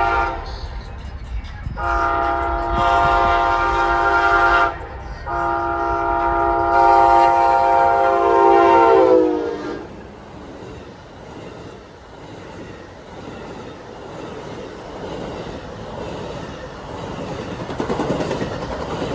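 Amtrak passenger train's locomotive horn sounding a chord: the end of one blast, then two long blasts, the last dropping in pitch as the locomotive passes. After the horn, the train runs by with a steady rumble of wheels on rail.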